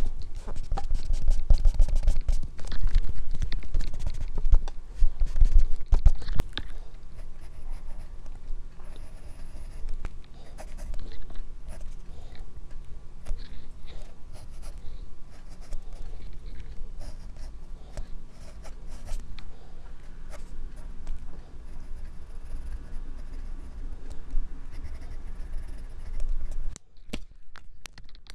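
Graphite pencil scratching across drawing paper in many short sketching strokes. The first six seconds or so are louder, with low rubbing and bumps under the strokes, and the strokes break off briefly near the end.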